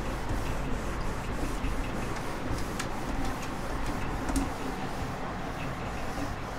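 Cloth duster rubbing back and forth across a whiteboard, wiping it clean in repeated strokes, over a steady low hum.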